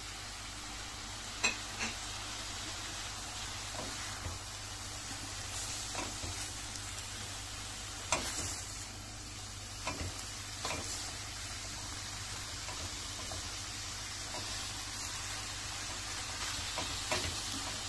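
Kazayağı greens and onions frying in a stainless steel pot with a steady sizzle, while a wooden spoon stirs them, knocking and scraping against the pot now and then.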